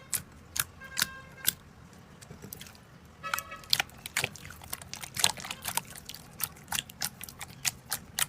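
Slime being squeezed and pressed, making a string of sharp, sticky pops and clicks. A few have a brief squeaky pitch, and they come thicker and faster from about three seconds in.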